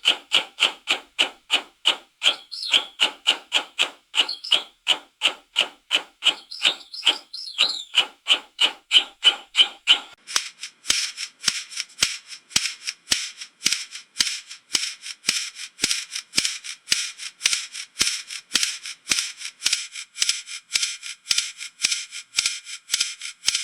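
Slow-speed dental handpiece whirring in short, even pulses, about three a second. About ten seconds in, its tone turns higher and thinner.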